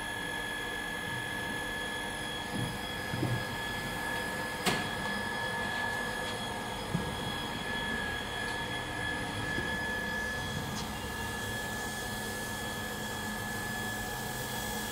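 Steady hum of running machinery with a constant high whine, broken by a few light knocks, the sharpest about five seconds in.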